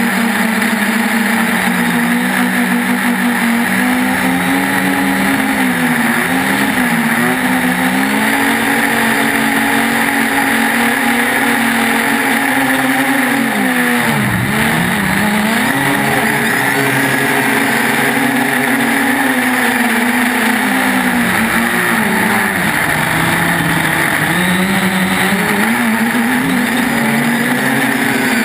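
3DR Iris+ quadcopter's electric motors and propellers buzzing in flight, the pitch dipping and rising again as the throttle changes, with one deep dip about halfway through.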